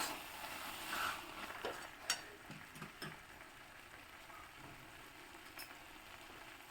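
A few light knocks of a spatula against the pan in the first three seconds, then a faint sizzle from the banana flower and moong dal mixture cooking uncovered in the pan.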